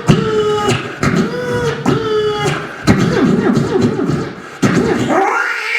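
A man imitating a car's electric window motor with his voice: several held whining runs, each cut off by a sharp click. Near the end comes a single rising-and-falling cat meow, also done by voice.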